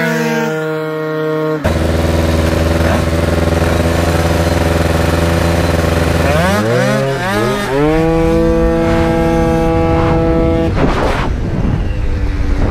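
Tuned two-stroke Piaggio Zip SP scooter engine racing at full throttle, held at a high steady pitch. About halfway in the pitch dips briefly and climbs back up, and wind noise grows near the end.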